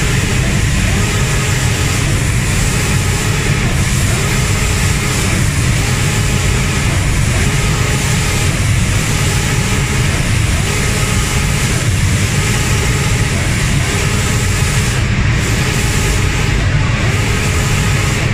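Automatic wood-door paint spraying machine running: a steady, loud rush of spray-gun air and booth machinery, with a faint tone that comes and goes about every second and a half.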